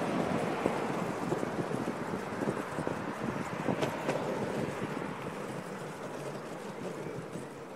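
Skateboard wheels rolling over boardwalk planks: a steady rumble full of small rapid clacks, gradually getting quieter.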